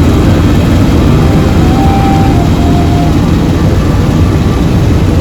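Helicopter engine and rotor noise: a loud, steady, low rumble without a break.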